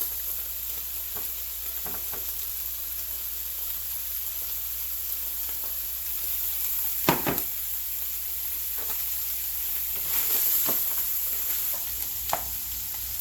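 Beef, onions and carrots sizzling in olive oil in a pot. A few sharp knocks sound against the pot, the loudest about seven seconds in.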